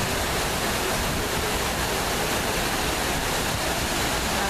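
Water pouring steadily down the walls of a 9/11 Memorial reflecting pool: an even, unbroken rushing wash.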